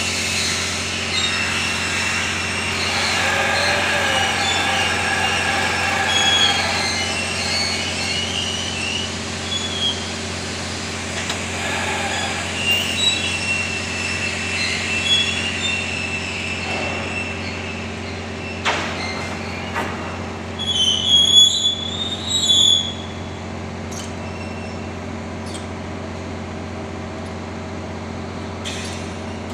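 A long welded rail panel running over steel conveyor rollers, with high-pitched metallic squeals and screeches that come and go over a steady low machinery hum. The squealing is loudest a little past two-thirds of the way through, and there are a few sharp metallic clanks.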